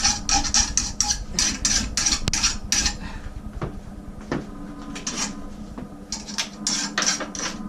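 Hand file rasping along the edge of a clamped steel lawn mower blade in quick one-direction strokes, about three a second, with a pause of a couple of seconds midway before the strokes resume.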